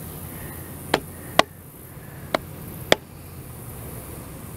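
Four short, sharp knocks on timber, in two close pairs, the first about a second in.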